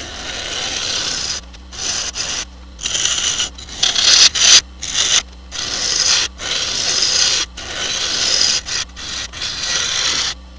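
A gouge cutting into a maple burl bowl blank spinning on a wood lathe: a hissing scrape as shavings come off. It comes in a series of short passes broken by brief gaps.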